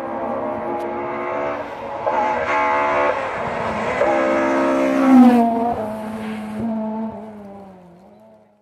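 Rally car engine approaching at speed, its pitch climbing and breaking several times as it shifts up through the gears. It is loudest as it passes about five seconds in, then drops in pitch and fades away.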